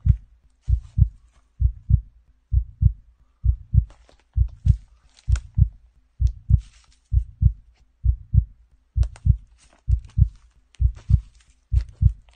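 Heartbeat sound effect: a steady lub-dub double thump, a little faster than once a second.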